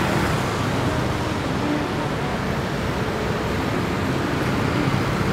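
Steady city street traffic: a continuous wash of vehicle engines and tyre noise from passing road traffic.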